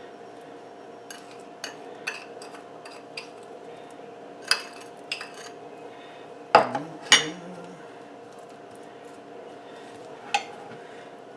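Utensils clinking and knocking against a pie pan and dishes while apple pie filling goes into the crust: scattered light clinks, with two louder knocks a little past halfway, over a steady low hum.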